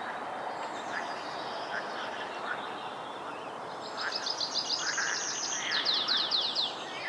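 Steady chorus of frogs with scattered short croaks. A small songbird sings a fast trill of high notes from about four seconds in, ending in a few quick falling notes.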